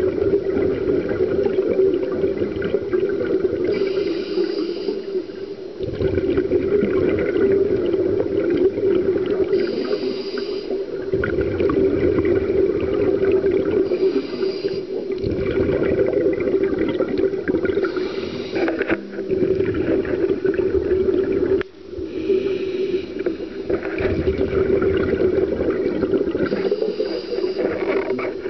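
Scuba regulator breathing heard underwater through a camera housing: a steady low drone with a short hiss and bubbling about every four to five seconds, one for each breath.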